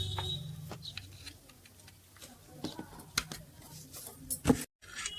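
Scattered light clicks and metallic taps of small engine parts and tools being handled, with a sharp knock shortly before the end. A low hum fades out in the first second.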